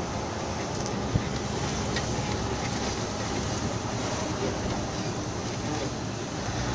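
Vehicle driving on a paved road, a steady rumble of engine and road noise heard from inside the cab, with one short knock about a second in.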